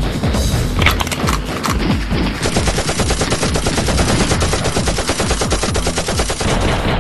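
Machine-gun fire sound effect: rapid, continuous automatic shots, dubbed over a finger-gun fight, becoming a steady, fast stream of shots from about two and a half seconds in.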